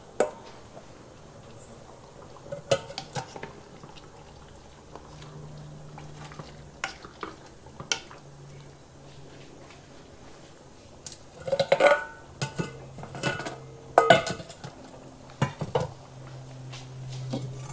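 Metal utensil clinking and scraping against a cooking pot as saba bananas go into the pork puchero and it is stirred. The clinks are scattered at first, then a busy run of clatter comes about two-thirds of the way through.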